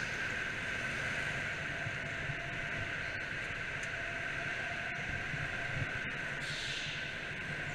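Go-kart driving on an indoor track, heard as a steady hiss with a constant high whine; no clear rise or fall in engine pitch.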